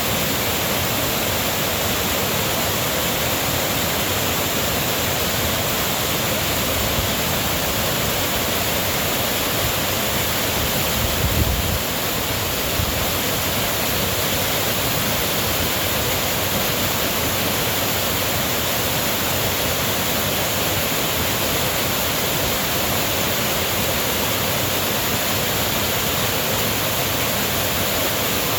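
Rushing river water, a steady unbroken roar of flowing water, with a brief low rumble about halfway through.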